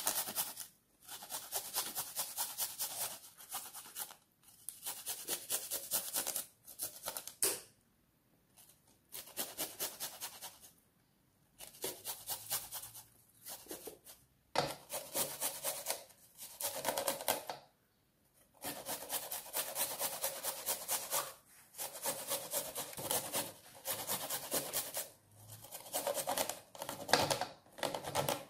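Garlic cloves rubbed against the fine holes of a flat stainless-steel hand grater, rasping in quick repeated strokes. The strokes come in runs of a few seconds with short pauses between them.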